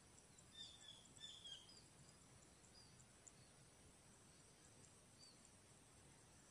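Near silence: faint field ambience with a steady high insect trill and a few soft bird chirps clustered from about half a second to two seconds in.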